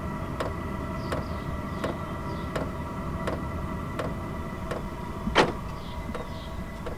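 Portable diesel heater running: a steady fan hum and whine with its fuel pump ticking evenly, about three ticks every two seconds, one tick about five seconds in louder than the rest.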